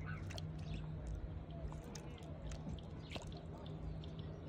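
Small dripping and splashing water sounds in shallow river water at a rock's edge, with scattered light clicks over a steady low background hum.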